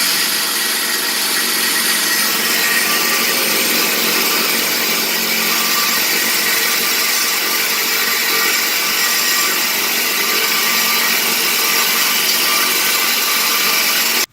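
Reciprocating saw (Sawzall) running steadily as it cuts through the Mustang's factory exhaust pipe. The blade is making poor headway on the pipe, which the owner blames on the blades.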